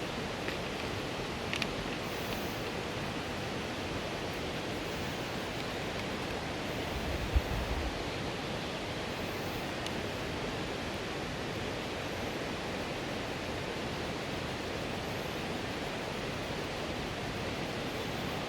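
Steady rush of falling water. There is a brief low thump about seven seconds in.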